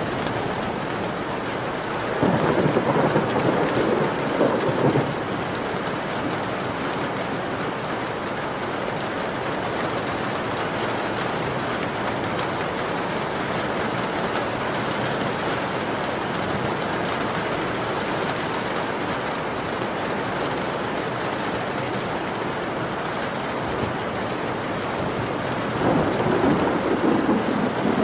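Steady heavy rain with thunder rumbling twice, a few seconds in and again near the end.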